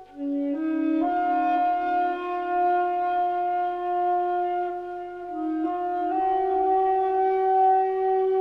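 Slow, meditative music of long held notes on a wind instrument, the melody moving in small steps from one sustained note to the next.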